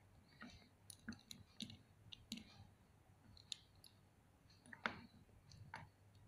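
Faint, scattered small clicks of an armoured action figure being handled and posed: its armour pieces and joints clicking against each other, the loudest about five seconds in.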